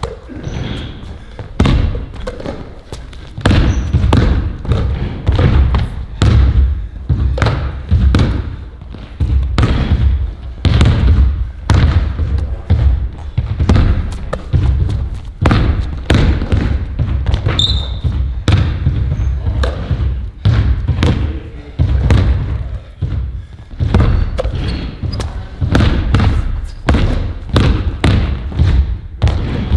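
A ball bouncing repeatedly on a hard floor: rapid, irregular thuds, several a second, with a few brief pauses.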